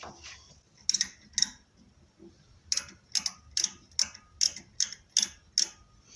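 Micrometer's ratchet stop clicking as its spindle is closed onto a turned steel bar. About ten sharp clicks: two about a second in, then a run of roughly two a second from near the middle.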